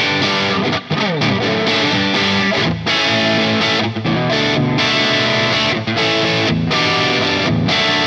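Soloking MT-1 Telecaster-style electric guitar with Wilkinson Alnico V pickups played through overdrive: distorted riffs and chords, with a quick downward slide about a second in and several brief muted stops between phrases.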